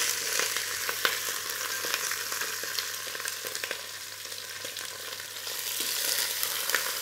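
Bone-in chicken thigh and leg pieces searing in a hot stainless steel stockpot: a steady sizzle with many small crackles and pops as fat renders out of the chicken.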